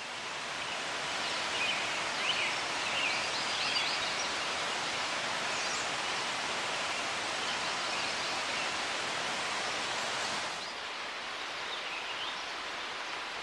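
Steady rush of a mountain stream's water, stepping down slightly about ten seconds in, with a few short bird chirps over it in the first few seconds and again near the end.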